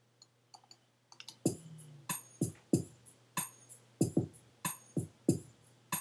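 A GarageBand drum-machine loop playing back: a programmed electronic beat starts about one and a half seconds in, with low drum hits about three a second and crisp high hits. A few faint clicks come before it.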